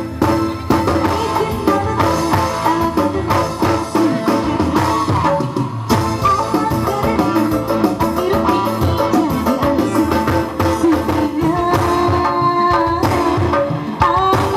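Live dangdut band music: kendang hand drums drive a quick rhythm under a keyboard melody.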